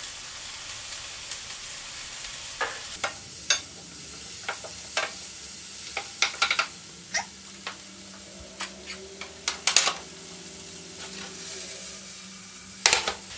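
Chopped onions sizzling in oil in a stainless steel frying pan, with a wooden spatula stirring and scraping them in scattered clicks. A louder sharp knock of the pan comes near the end.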